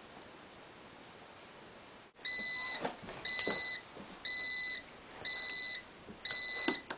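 Electric bread machine beeping five times, about once a second, each beep about half a second long and starting about two seconds in: its end-of-cycle signal that the loaf has finished baking.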